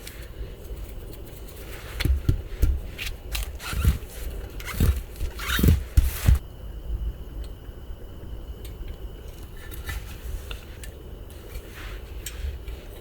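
Small objects being handled: a run of clicks, scrapes and dull knocks, busiest between about two and six seconds in, then a few scattered clicks over a steady background hum.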